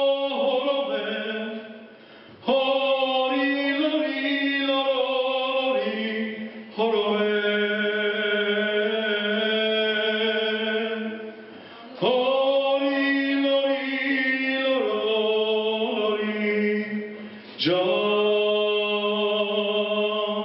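A man singing solo into a microphone. He holds long, sustained notes in phrases of a few seconds, with short breaks between them.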